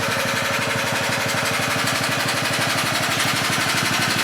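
Holden VR Commodore engine idling steadily with a fast, even knocking rhythm, the sign of the spun bearing the owner says this engine has.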